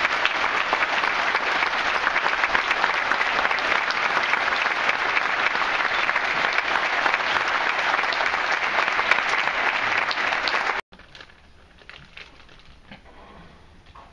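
Audience applauding: dense, steady clapping that cuts off abruptly about eleven seconds in, leaving only faint room noise.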